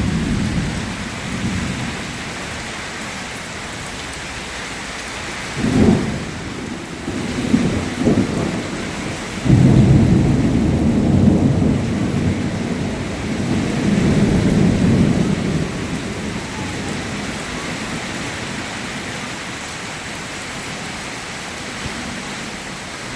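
Thunderstorm: steady rain with thunder, a short sharp clap about six seconds in, then a long low rumble from about ten seconds in that lasts several seconds before dying back to rain.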